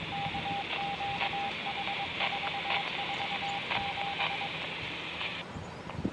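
Scanner radio receiving a hissing transmission on the county dispatch channel, with a single steady-pitched beep keyed on and off in dots and dashes for about four and a half seconds; the hiss cuts off abruptly about five seconds in as the transmission ends.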